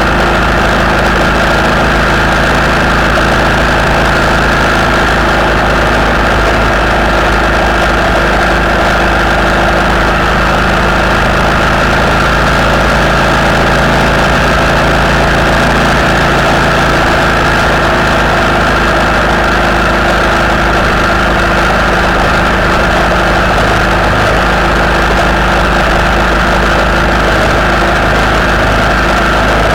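Steady engine and road noise of a vehicle cruising at motorway speed, its pitch holding constant throughout.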